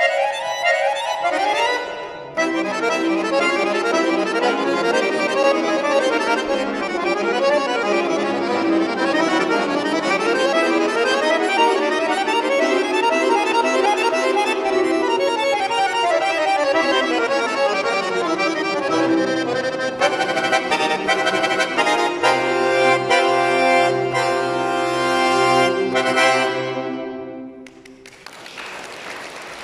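Bayan (Russian chromatic button accordion) playing a solo piece in dense sustained chords, with deep bass notes entering for a few seconds near the end. The host afterwards calls the piece frightening music. The music dies away, and applause begins just before the end.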